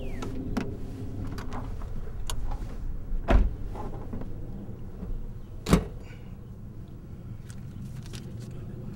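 Car running with a steady low rumble and scattered small clicks, and two sharp knocks about three and a half and nearly six seconds in.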